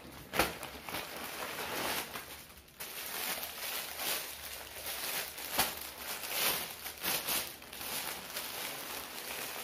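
Plastic packaging of a delivered parcel crinkling and rustling as it is handled and unwrapped, with a few sharper crackles.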